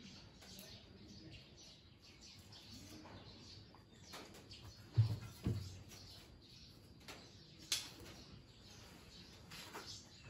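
Faint bird chirps in the background, with two low thuds about five seconds in.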